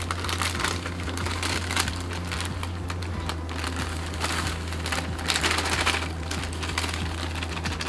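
Clear plastic bag crinkling and rustling as dry chocolate cake-mix powder pours out of it into a plastic bowl, with many small irregular crackles.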